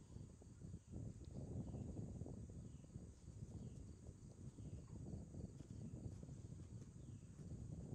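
Quiet outdoor ambience: a low rumble of wind on the microphone, a steady high insect drone, and faint short falling chirps repeating about once a second.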